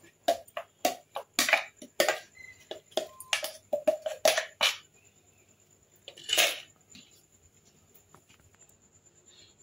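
Steel mixer-grinder jar and spoon knocking and scraping against a steel bowl as thick ground urad dal chutney is emptied out: a quick run of clinks and taps for about five seconds, then one last knock a little after six seconds in.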